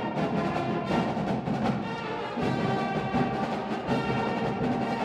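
A band playing, with brass instruments over steady drum strokes.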